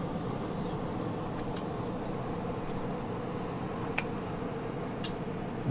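Steady low background hum with a few faint, sharp clicks spread through it, about one a second.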